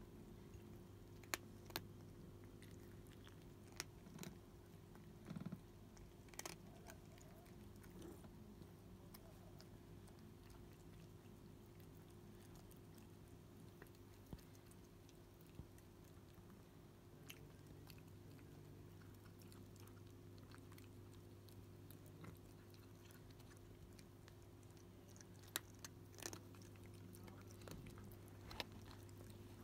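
Faint sounds of cats chewing and crunching food, with scattered sharp clicks, over the steady low hum of a small 3 W aquarium pump running a cat water fountain.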